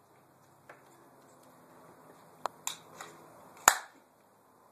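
Airsoft rifle firing single shots: a sharp snap about halfway through, a couple of lighter clicks, then the loudest shot near the end.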